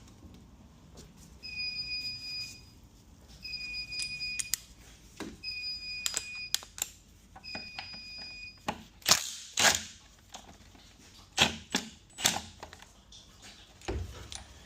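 Four evenly spaced electronic beeps, each held about a second, one every two seconds. They are followed by sharp metallic clicks and clinks of hand tools being handled.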